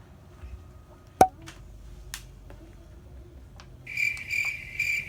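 Silicone pop-it fidget toy bubbles being pressed, giving scattered faint clicks and one sharp, loud pop about a second in. From about four seconds a steady high chirping starts, pulsing about three times a second.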